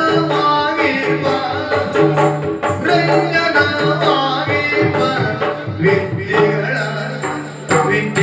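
Yakshagana ensemble music: drums beating in a quick rhythm over a steady low drone, with a voice singing a bending melody line.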